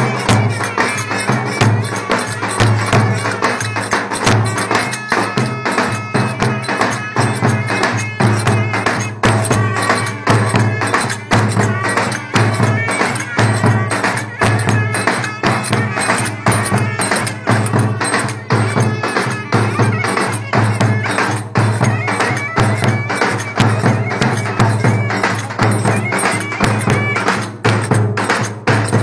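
Turkish wedding dance music: two clarinets playing a reedy melody over fast, steady percussion and a pulsing low beat.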